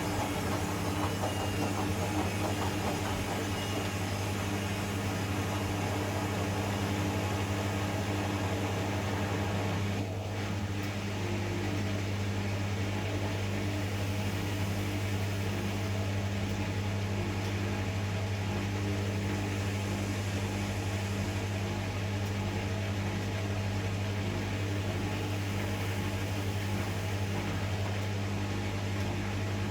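Zanussi ZE 16 washing machine running with a steady, even hum that holds the same pitch throughout.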